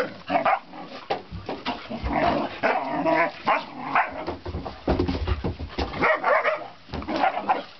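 Puppies play-fighting in a pack, barking and yipping in many short, irregular bursts: the rough play typical of a litter.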